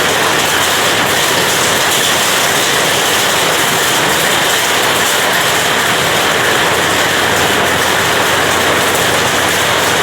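Steady rain, an even unbroken hiss with no individual drops or gusts standing out.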